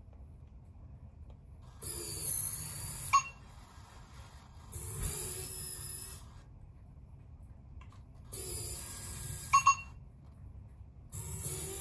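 Tomy i-SOBOT toy humanoid robot's small servo motors whirring in four separate bursts of about a second and a half each as it moves. A short sharp tone closes the first burst and two quick tones close the third.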